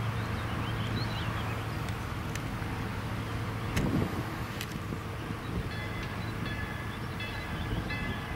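EMD FP9A diesel locomotive with its 16-cylinder 567 engine running with a steady low hum as it approaches slowly with a freight train, with a louder clank from the wheels on rough track about four seconds in. Short high tones repeat from about six seconds in.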